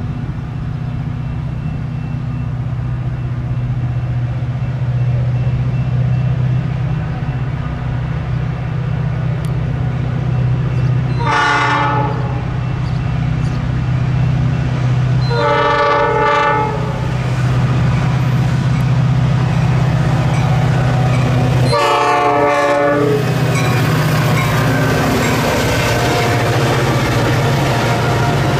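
Metra commuter train's diesel locomotive approaching: a steady low engine rumble that slowly grows louder, broken about midway by three horn blasts, the second and third longer, sounded for the grade crossing. Near the end, wheel and rail noise rises as the train comes past.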